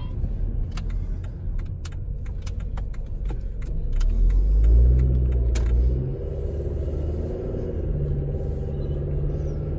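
Car engine and road rumble heard from inside the cabin while driving, swelling about halfway through as the car speeds up, with a steady low drone near the end. A run of sharp clicks sounds during the first half.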